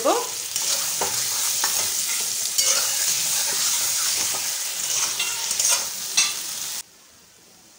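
Ash gourd pieces sizzling in oil in a metal kadai while a metal spatula stirs them, scraping and clicking against the pan. The sizzle and stirring cut off suddenly near the end.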